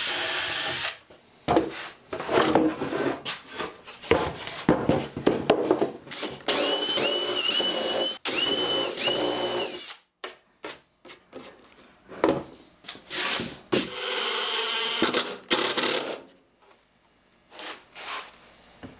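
Cordless drill boring and countersinking screw holes in wood, in many short bursts and a few longer runs with a whine that dips as the bit bites. There is a short pause near the end.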